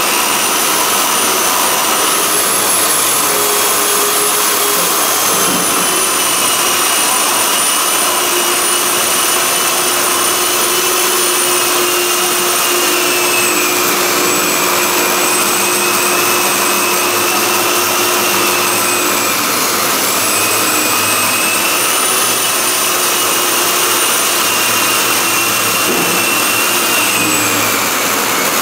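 A motor running steadily: a dense hiss with a high whine that drifts slowly up and down in pitch.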